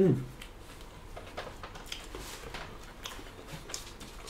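Close-up eating sounds: a short falling "mm" right at the start, then soft, scattered clicks and smacks of chewing and of hands picking at rice and lettuce.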